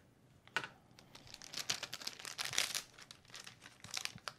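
Plastic anti-static bag crinkling and rustling in uneven bursts as it is handled and opened, starting about half a second in.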